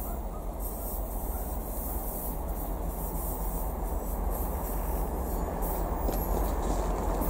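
2M62 diesel locomotive approaching at the head of a freight train, its two-stroke diesel engines running with a steady low drone that grows slowly louder.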